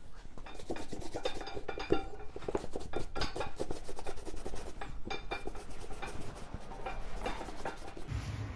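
Repeated scraping and rubbing strokes of a wooden-handled hand tool worked along the leather welt and sole edge of a work boot, a few short strokes a second, as the old welt is worked on for replacement.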